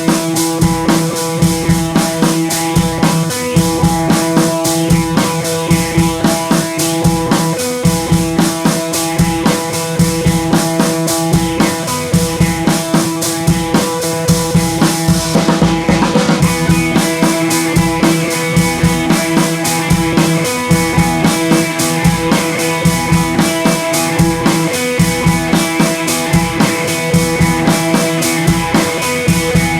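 Background music with a steady drum-kit beat and sustained instrument tones.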